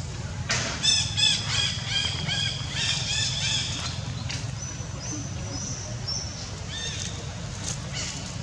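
Young long-tailed macaque giving a rapid run of high, squealing calls, about three a second for some three seconds, followed by a few short, thin, high notes.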